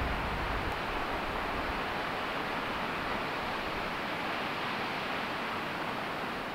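Steady rushing of a tall waterfall heard from high on the canyon rim, with a brief low rumble of wind on the microphone in the first second.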